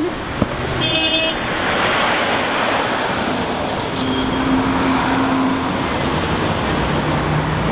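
Road traffic: cars passing and engines running, a steady rushing noise, with a short high-pitched tone about a second in.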